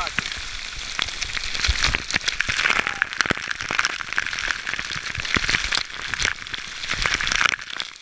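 Waterfall water pouring and spraying onto an action camera's housing: a dense crackling hiss with many sharp droplet hits.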